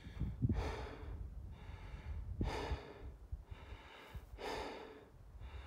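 A hiker breathing hard through several deep breaths, winded after a steep climb.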